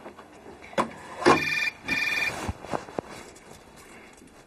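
Mobile phone ringtone: two short bursts of a bright electronic ring, starting about a second in, with a few light knocks and clicks around it.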